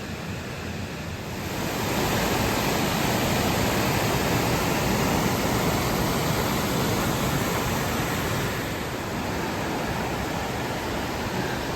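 Swollen, fast-flowing creek rushing close to the microphone, a steady loud wash of water that grows louder about two seconds in.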